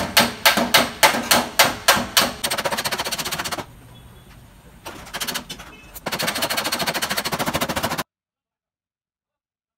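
Hammer blows on a car's sheet-metal wheel arch, a panel beater knocking the crash damage back into shape cold. Evenly spaced strikes come about four a second, then runs of much faster tapping with a short pause between them. The hammering stops abruptly about eight seconds in.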